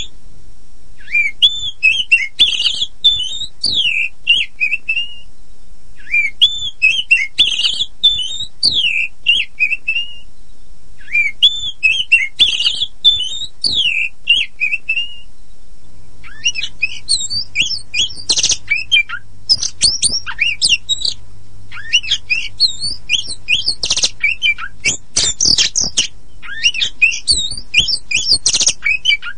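Oriental magpie-robin (kacer poci, the white-bellied form) singing. Three similar whistled phrases of about four seconds each, with short pauses between them. From about sixteen seconds in the song turns into a faster, denser string of high sharp notes and clicks.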